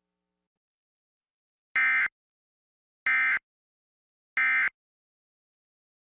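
Emergency Alert System end-of-message signal: three short bursts of shrill digital data tones about 1.3 seconds apart, marking the end of the test alert.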